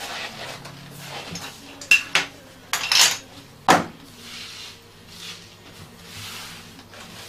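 Tools and small objects clinking and knocking as they are picked up and set down on a workbench, with several sharp knocks in the first four seconds, then softer rustling and rubbing. A faint steady hum runs underneath.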